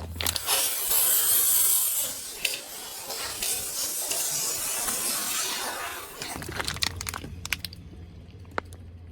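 Objects being crushed under a car tyre: a hissing, spraying rush for about six seconds, loudest in the first two, then scattered crackles and sharp clicks over a low steady engine hum.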